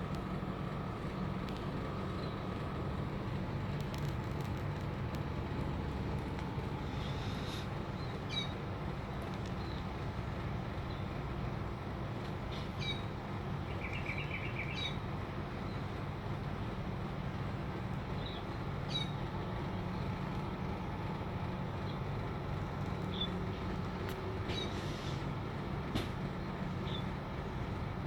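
A steady low machine hum runs throughout, with short high bird chirps scattered over it and a brief trill about halfway through.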